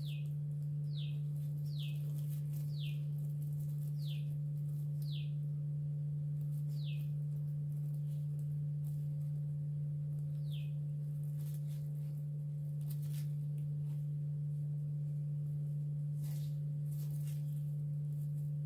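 A steady low hum, with eight short, high chirps, each falling in pitch, spaced irregularly over the first eleven seconds. A few faint rustling clicks come near the end, while a crochet hook works strips of plastic carry bag.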